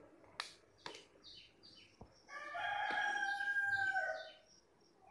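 A rooster crowing once, one long call of about two seconds, after two sharp clicks and a few faint bird chirps.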